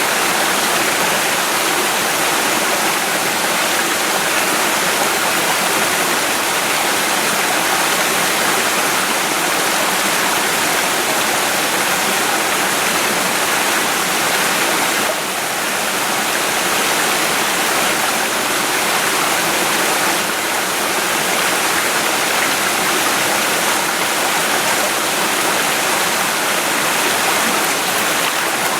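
Small mountain stream running, a steady rush of flowing water.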